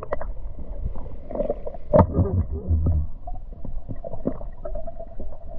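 Muffled underwater sound from a submerged camera: water rumbling and sloshing, with scattered small clicks and knocks and one sharper knock about two seconds in.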